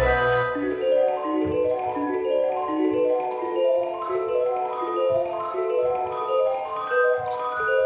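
Background music: a mallet-percussion melody of quick, bell-like notes stepping up and down in a steady rhythm.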